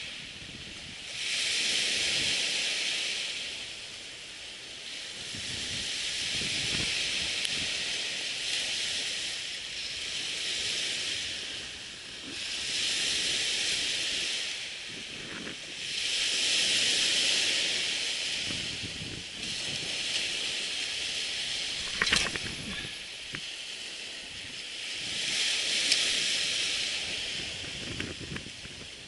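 Surf washing up a sandy beach, a hissing rush that swells and fades every three to five seconds as each wave runs in and drains back. A sharp click stands out about two-thirds of the way through.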